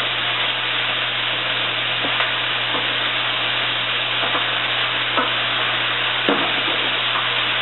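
Chicken, sausage and vegetables sizzling steadily in a pan over high heat, with a utensil scraping and stirring a few times.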